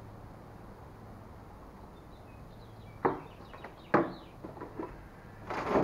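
Plastic gallon jug being handled after a drink: two sharp knocks of the plastic about three and four seconds in, then a few lighter taps and a rustle near the end. Faint bird chirps in the background.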